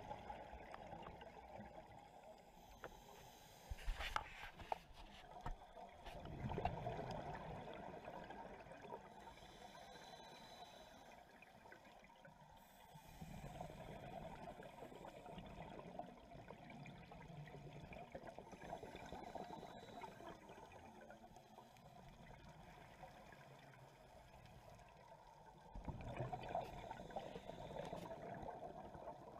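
Muffled underwater sound inside a camera housing on a scuba dive: a diver's exhaled regulator bubbles gurgle in several swells. A few sharp clicks come about four seconds in.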